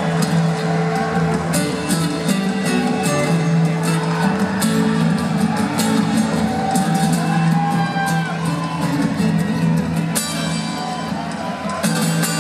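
Live rock band playing through a concert PA: electric guitar over a steady low held note, with drum and cymbal hits, recorded from the audience in a large hall.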